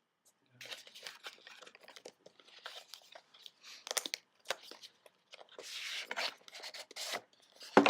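Plastic and cardboard product packaging handled as the contents are pulled out of the box: irregular rustling with scrapes and clicks, and a sharper knock near the end.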